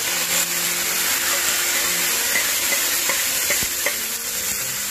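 Wet ground onion, tomato and coconut masala paste hitting hot oil in a frying pan, sizzling loudly and steadily as it is tipped in from a steel mixer jar. A couple of light knocks come about three seconds in.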